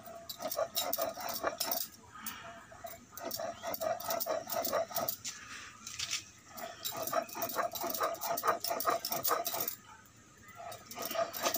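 Stone roller being rubbed and rolled back and forth on a flat grinding stone (sil-batta), grinding tomato chutney in quick scraping strokes. A thin, steady whine at one pitch comes and goes among the strokes.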